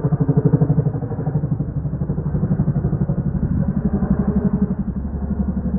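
Boeing CH-47 Chinook tandem-rotor helicopter flying over, its rotor blades beating in a rapid, even thump with engine noise beneath.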